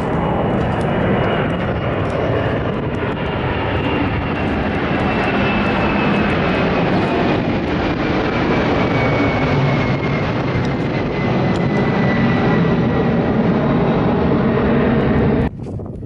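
A jet plane passing overhead: a loud, steady rumble with a thin whine that slowly falls in pitch as it goes by. The sound cuts off suddenly near the end.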